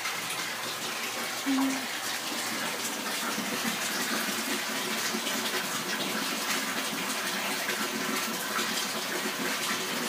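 Bathroom sink faucet running steadily, water streaming into the basin, with one brief low sound about a second and a half in.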